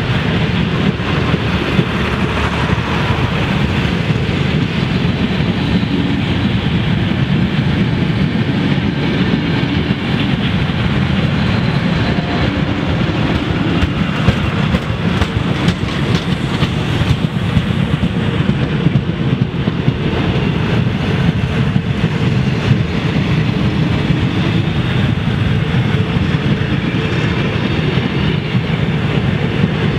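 A rake of passenger carriages rolling steadily past close by: steel wheels rumbling on the rails, with a constant run of clicks from the wheels.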